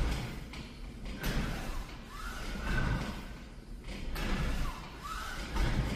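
kPulley flywheel trainer running through rowing reps: with each pull and return the rope spins the flywheel into a whir that glides up and down in pitch, and a knock sounds at each change of direction, about every second and a half.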